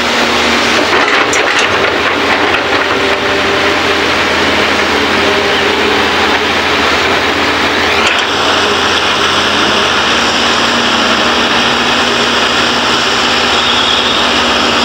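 Diesel engines and hydraulics of Hitachi and Kobelco crawler excavators running steadily under load as they dig soil and load dump trucks. A higher steady tone joins abruptly about eight seconds in.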